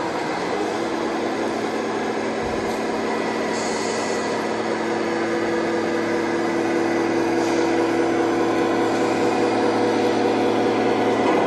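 Simulated diesel engine sound from a 1/14 scale RC truck's sound module, a steady droning note through a small speaker that grows slowly louder as the truck comes closer. Under it, the general noise of a busy exhibition hall.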